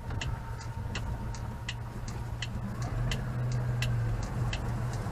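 Citroën 2CV's air-cooled flat-twin engine running at low speed, heard from inside the cabin, getting louder about three seconds in as it pulls away. A steady ticking, about three ticks a second, goes on over it.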